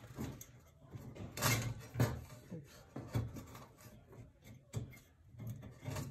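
Hands fitting a replacement igniter and its cable into a Bosch gas cooktop's sheet-metal burner base: a handful of scattered clicks and knocks of the parts against the metal, with rubbing and handling noise between them.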